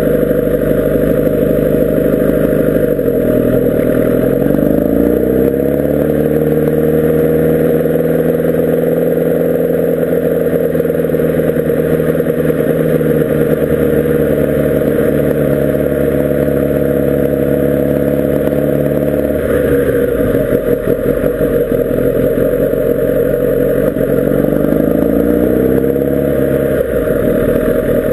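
Kawasaki Ninja ZX-10R SE's inline-four engine running while riding. Its pitch dips and then climbs a few seconds in, holds steady for a long stretch, drops to a rougher, lower note around twenty seconds in, and climbs again near the end.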